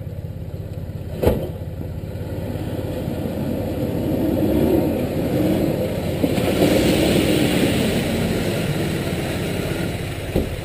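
A four-wheel drive's engine running as it drives through a shallow river crossing, growing louder as it passes close by, with water splashing from its wheels for the last few seconds. Two sharp knocks, about a second in and near the end.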